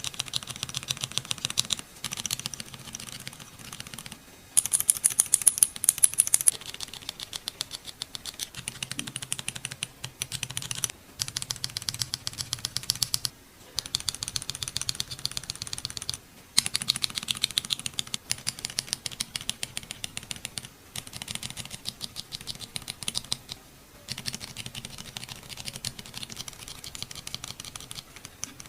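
Akko mechanical keyboard switches on a switch test kit, typed rapidly in short runs of a few seconds, one switch type after another with brief breaks between. The runs differ in character, and one run a few seconds in is clearly louder and sharper-clicking than the others.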